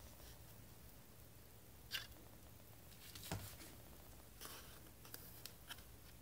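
Faint handling noises of a 1/43 diecast model car transporter being picked up and turned in the hand: a light click about two seconds in, a louder knock a little after three seconds, a brief rustle, then a few small clicks near the end.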